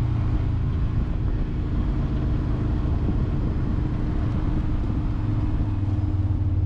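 A motor vehicle's engine running steadily under road and wind noise, its hum changing pitch about five seconds in.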